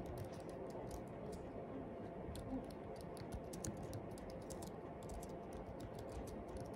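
Fingers typing on a slim, low-profile computer keyboard: a faint, irregular run of soft key clicks.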